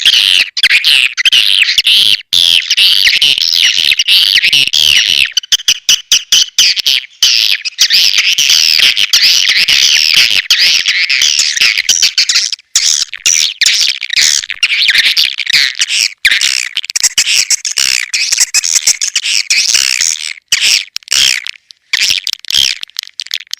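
Swiftlet lure call: dense, continuous twittering of many swiftlets, rapid high chirps sweeping up and down, broken by many brief silent gaps. This is the kind of call played from a swiftlet house to draw swiftlets in to roost and nest.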